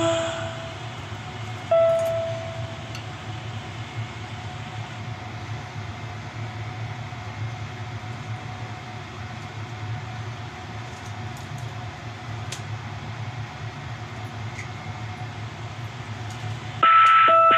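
Steady low rumble of background noise with a faint steady hum, broken by a single short musical tone about two seconds in. Music starts again abruptly near the end.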